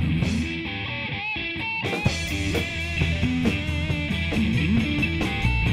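A live rock band plays an instrumental break: electric guitar lines over bass guitar, acoustic guitar and a drum kit. The band thins out briefly about half a second in, and a sharp drum hit about two seconds in brings it back.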